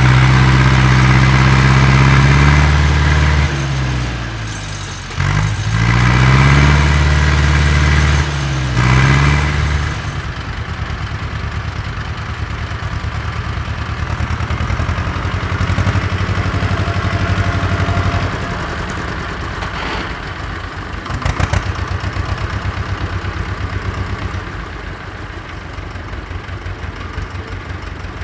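Ursus farm tractor diesel engine working hard under load, its pitch dipping and climbing again twice. About ten seconds in it changes to a quieter tractor engine idling with a slow, even beat, with a few short knocks partway through.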